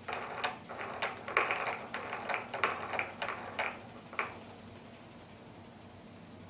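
Plastic spinning-ball toy on a baby walker's activity tray clicking and rattling as a baby spins and bats it, a quick irregular run of clicks that stops about four seconds in.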